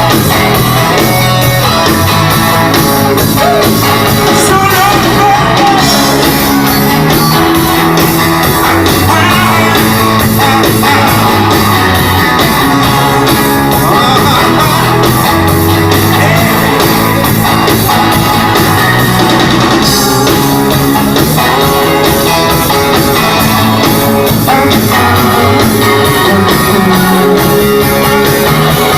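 Rock song played by a band with guitars, bass and a steady beat, with a voice singing at times.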